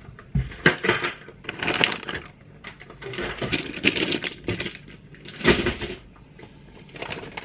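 Hands rummaging through a cardboard box of parts packed in plastic bags: crinkling and rustling with small hard parts clinking, and two heavier knocks, about half a second in and about five and a half seconds in.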